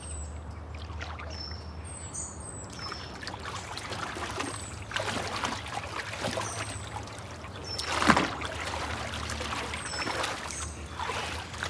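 Pool water splashing and sloshing as a swimmer enters and swims, with a louder splash about eight seconds in. Birds give short falling chirps throughout.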